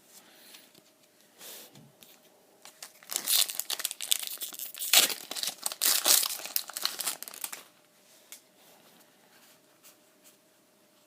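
A foil trading-card booster pack being torn open and crinkled. A short rustle comes about a second and a half in, then about four seconds of dense crackling and tearing.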